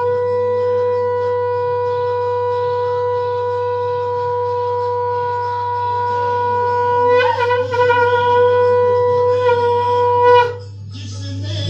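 Conch shell (shankh) blown in a long, steady note, wavering briefly about seven seconds in, then held again until it stops about ten and a half seconds in. A constant low hum runs underneath.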